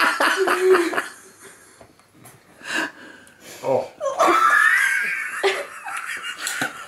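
People laughing: a burst of laughter at the start, a quieter lull, then a longer high-pitched laugh from about four seconds in.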